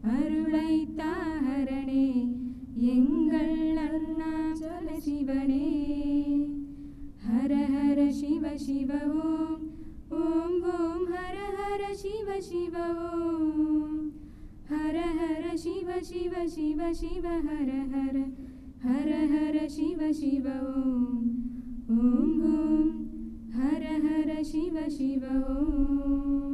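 Three young women singing together unaccompanied into podium microphones, in phrases of a few seconds with long held, wavering notes and short breaths between them.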